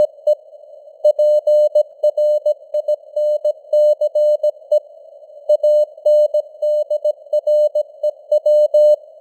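Morse code (CW) sent at 17 words per minute: a single steady mid-pitched tone keyed on and off in dots and dashes, with short pauses between words. Behind it runs a narrow band of simulated radio-receiver hiss.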